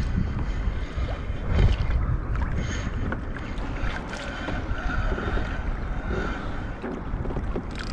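Wind buffeting the microphone over water sloshing around a kayak, with a few sharp knocks and a faint steady high whine about halfway through.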